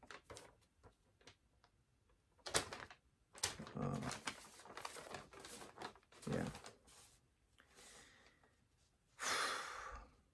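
Quiet handling of sheets of paper: a sharp tap, short rustles and a couple of soft murmurs, then a longer breathy rustle near the end.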